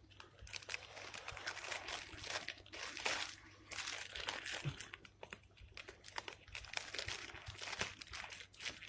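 Irregular crinkling and rustling of something being handled and moved about, with scattered crunches.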